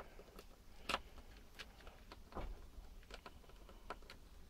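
Faint, scattered clicks and taps of multimeter test probes being handled and pushed against the plastic end of an e-bike battery pack as they are fitted to its output terminals, the clearest about a second in and again midway.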